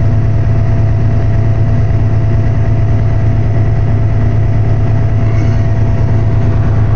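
Vehicle engine idling: a loud, steady low drone with a faint steady whine above it.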